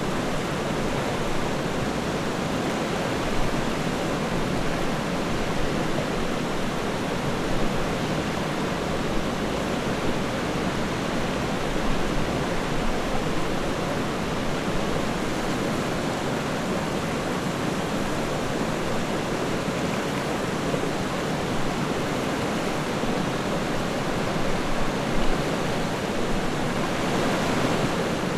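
River water rushing and splashing steadily over rocks, an even wash of noise with small splashes now and then.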